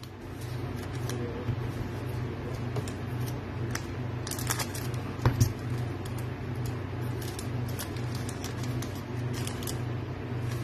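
Foil Panini Revolution WWE hobby pack crinkling and crackling as it is torn open and the cards are slid out, with the crackles mostly from about four seconds in. A steady low hum runs underneath.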